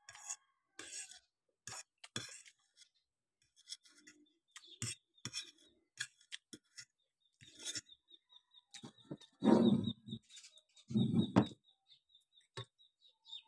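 Metal spoon clinking and scraping against a ceramic plate in short, scattered strokes as the last of the spaghetti is scooped up. Two louder, low muffled noises about a second long come near the end, over a faint high, evenly repeated chirping.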